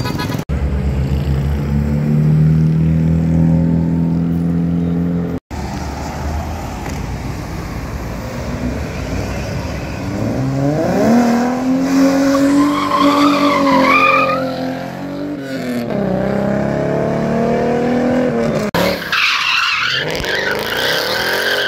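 Cars drifting on tarmac in several cut-together clips. A steady engine note gives way to a car engine revving up and down while its tyres squeal, about halfway through. Near the end comes a hissing tyre skid.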